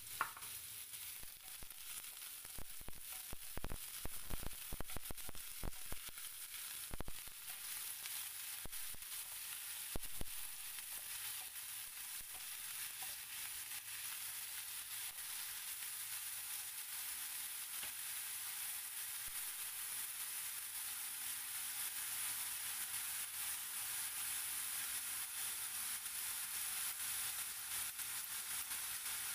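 White shimeji mushrooms sizzling in hot oil with sliced garlic, stirred with a wooden spatula that knocks and scrapes against the pan during the first ten seconds or so. After that the sizzle goes on steadily and gets slightly louder.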